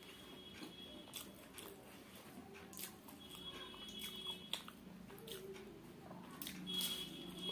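Close-miked chewing and biting of fried samosa: irregular crunches and mouth clicks.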